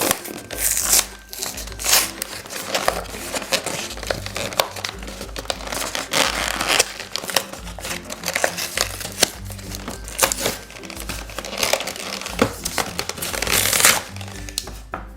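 Plastic toy packaging crinkling and tearing in irregular handfuls as it is opened, over cheerful background music with a steady bass line.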